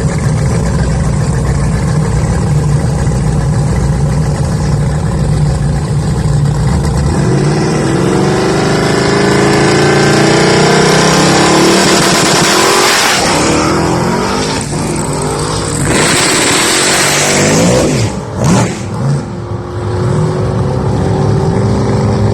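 Car engine running at a low rumble, then accelerating from about seven seconds in with its pitch climbing. Loud rushing noise follows, and near the end a steady higher drone.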